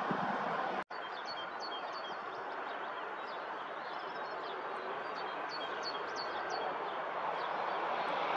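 Small birds chirping again and again over a steady rushing rumble from a diesel regional train far off, which grows gradually louder as it approaches. The sound drops out for an instant about a second in.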